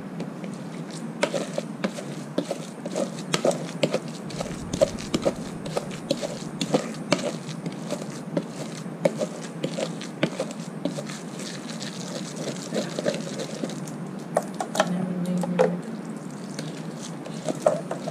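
Wooden pestle pounding and stirring a wet fermented-soybean chili paste in a mortar: uneven knocks, several a second, as the paste is worked.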